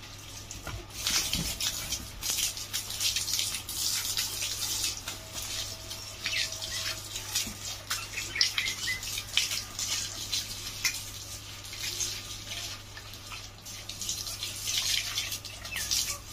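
Water from a hose splashing and spattering unevenly over an old steel bicycle as it is washed down.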